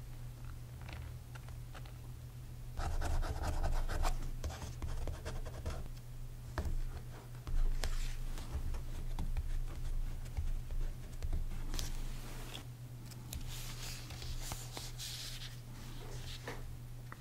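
Fingertips pressing and rubbing a strip of washi tape down onto a paper journal page, a soft scratching rustle with small clicks. It grows louder in two stretches, about three seconds in and again about thirteen seconds in.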